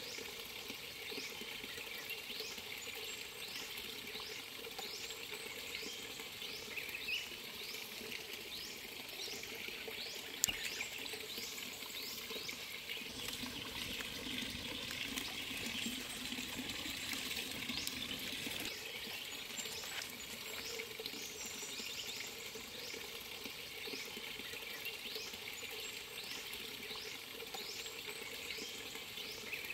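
Forest ambience by a stream: many short, falling chirps from birds and insects repeat high up over a steady wash of running water. There is a single sharp click about ten seconds in.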